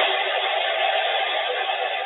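Weather radio receiver giving out a steady hiss of static, with no voice or tones: the sign of the NOAA Weather Radio transmitter having gone off the air. The hiss eases slightly in loudness.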